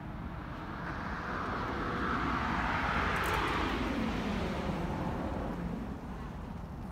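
A vehicle passing by on wet asphalt: tyre hiss swells to a peak about three seconds in and fades away, with a faint engine tone under it dropping in pitch as it goes past.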